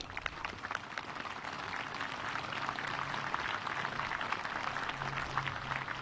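A crowd applauding: a dense patter of many hand claps that swells over the first couple of seconds and then holds steady.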